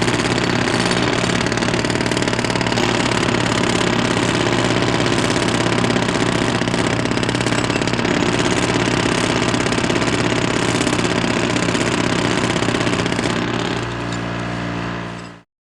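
An engine running steadily. It drops in level near the end, then cuts off abruptly.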